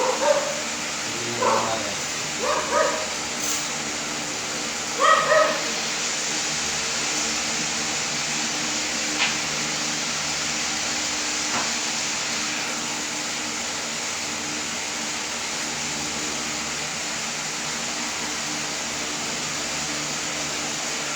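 A dog barking, a few short barks in the first six seconds, over a steady background hiss and hum that carries on alone afterwards.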